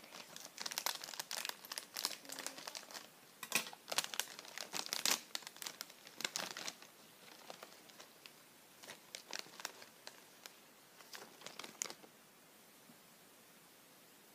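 Plastic snack bag of Tohato Caramel Corn crinkling and rustling as it is cut with scissors and pulled open: dense crackling for about the first seven seconds, then a few scattered rustles before it dies away.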